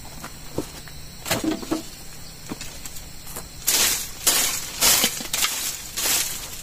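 Dry twigs crackling and snapping as a bundle of them is handled. From a little past halfway, the bundle brushes over dry dirt ground in repeated strokes, somewhat under two a second, like a makeshift twig broom sweeping.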